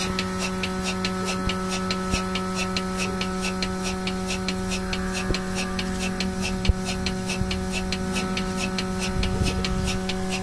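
Portable milking machine running during milking: a steady motor hum with a fast, regular ticking, about three to four ticks a second. A single light knock sounds about two-thirds of the way through.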